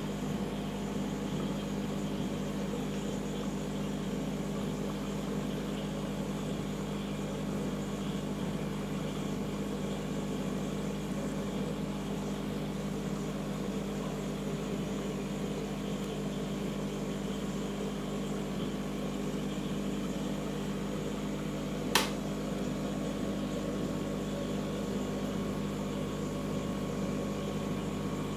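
Marine aquarium equipment humming steadily, a pump-like drone over a faint hiss of moving water and air. Late on there is one sharp click.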